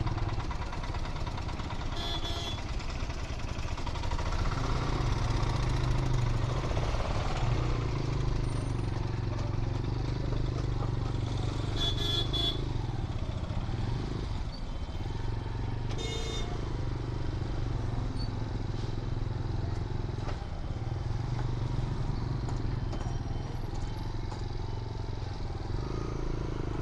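Motorcycle engine running at low speed in stop-and-go traffic, with surrounding traffic noise. Short vehicle horn toots sound about two seconds in, around twelve seconds and again around sixteen seconds.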